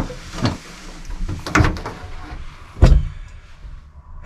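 A few separate knocks and bumps, the loudest about three seconds in.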